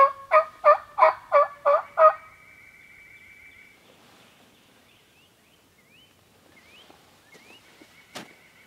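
Turkey call run by a hunter, sounding a quick series of about eight loud two-note hen yelps meant to get a gobbler to answer. A fainter drawn-out sound follows right after the series, and there is one sharp click near the end.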